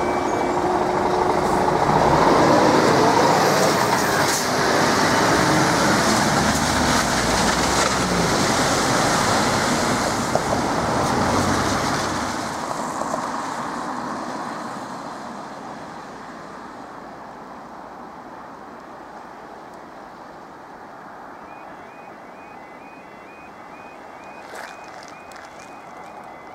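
A level crossing alarm's steady tone cuts off right at the start. A loud rush of passing vehicle noise follows for about twelve seconds, then fades away. About five seconds from the end the crossing's faulty alarm starts again, faint, as short repeating beeps.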